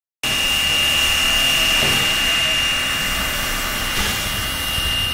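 Virginia & Truckee No. 29, a 2-8-0 steam locomotive, hissing steam steadily with a high whistling tone through the hiss. It cuts in abruptly about a quarter second in. Wind rumbles on the microphone underneath.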